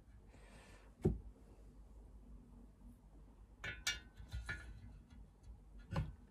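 Faint, scattered metallic clicks and taps of valve lifters being slid into their bores in a VW magnesium engine case: one sharp click about a second in, a cluster of clicks around four seconds in, and another near the end.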